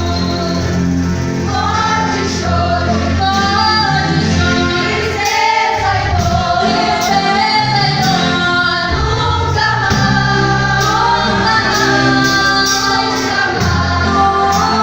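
Gospel music: a group of singers, women's voices to the fore, singing together over a band with a steady bass line and drum hits.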